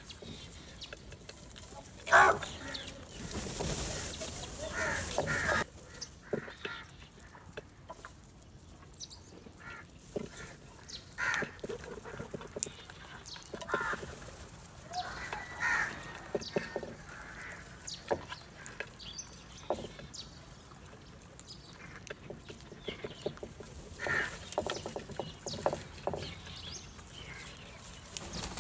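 A flock of house crows cawing on and off as they feed, the loudest call about two seconds in. A stretch of rustling noise runs from about two to five seconds in.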